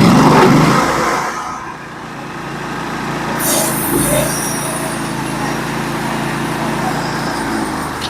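A Norwood HD36 portable sawmill's gas engine starts and runs with a steady hum.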